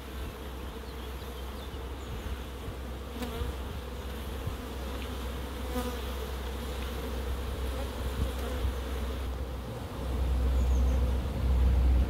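Honeybees buzzing in a steady hum over an open hive, stirred up as a brood frame is brushed clear of them with a bee brush. A low rumble grows louder near the end.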